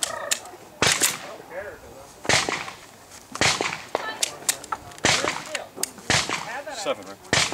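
Handgun shots fired one at a time, about eight of them at an irregular pace roughly a second apart.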